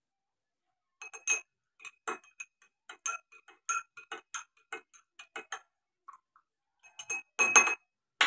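Metal spoon stirring liquid in a glass tumbler, clinking against the glass in quick, irregular ringing clicks, with a louder clatter near the end.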